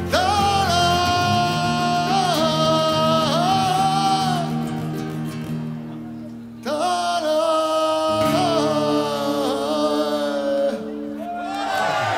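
Male voice singing long, wavering tribal-folk phrases over a sustained low drone. There are two long sung lines, the second starting about halfway through after a brief dip.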